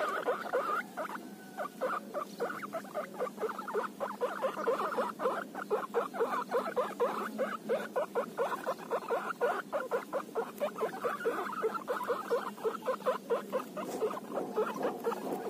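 Guinea pig courtship call, the mating rumble: a long, steady run of short pulsed calls, about four a second, with a brief pause about a second in.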